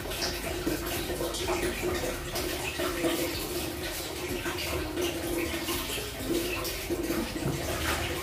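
Wet scrubbing and splashing of water as a cat's fur is lathered and washed on a tiled bathroom floor, with many short scratchy rubs. A steady low hum runs underneath.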